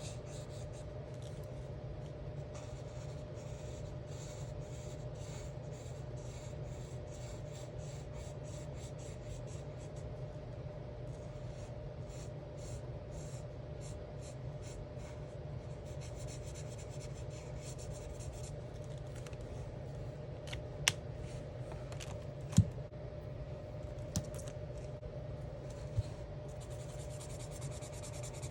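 Alcohol marker nib scratching across coloring-book paper in runs of quick back-and-forth strokes, with short pauses, over a steady low hum. In the second half there are four sharp clicks, a second or two apart.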